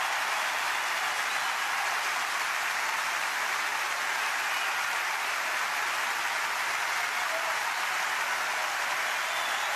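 A large arena crowd applauding: dense, steady clapping with no break.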